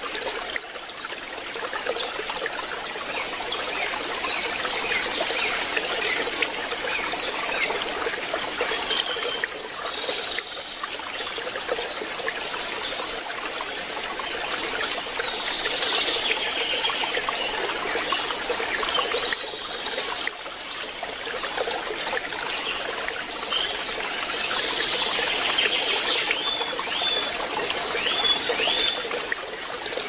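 Water trickling steadily. Small birds chirp now and then, with a run of quick falling notes near the end.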